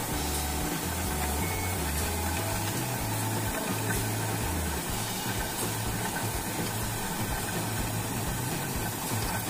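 Steady machine noise with a low hum: a wheat-filling machine running, its hose drawing in loose wheat that is pushed to it.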